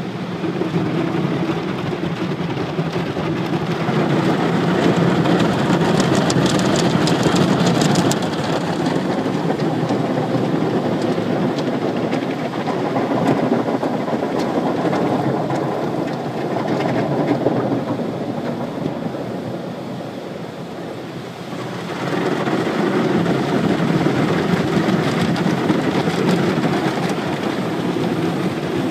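Automatic tunnel car wash heard from inside the car: cloth brushes and water spray working over the body and windshield in a continuous noisy wash of sound. It eases about twenty seconds in and comes back louder a couple of seconds later.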